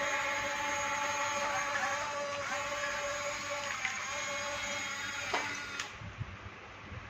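Background music with sustained notes, cutting out near the end to a low engine rumble.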